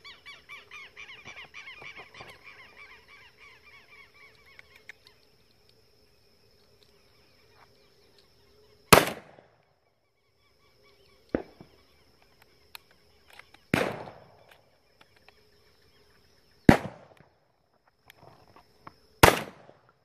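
A shotgun fires five times at doves overhead, every two to three seconds, each shot echoing briefly; the second is fainter than the rest. Before the shooting a bird gives rapid, repeated chattering calls for several seconds.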